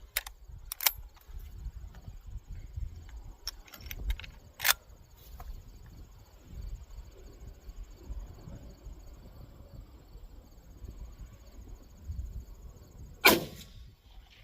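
Wind rumbling on the microphone, with a few sharp clicks in the first five seconds, then one loud rifle shot from a 1949 Winchester Model 94 lever-action in .30-30 about thirteen seconds in.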